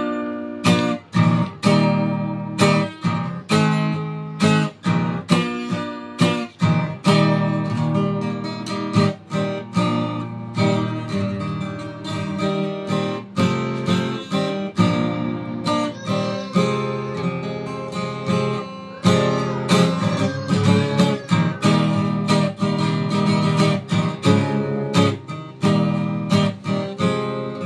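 Revel acoustic guitar strummed in a steady rhythm, the chords changing as it goes.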